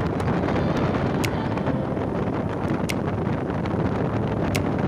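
Wind rushing over the microphone of a chest-mounted phone on a moving motorcycle, a steady noise that covers any engine sound. A faint high tick repeats about every second and a half.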